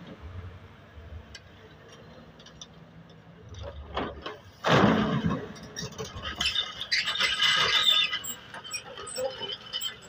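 Kobelco crawler excavator working its bucket in river stones and gravel: a low engine drone, a loud scrape about five seconds in, and high metallic squealing around seven to eight seconds.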